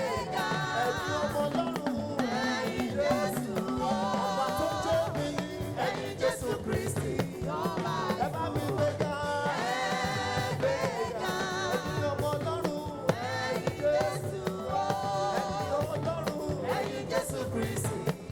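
Live Yoruba gospel praise music: singers over a band with a steady beat.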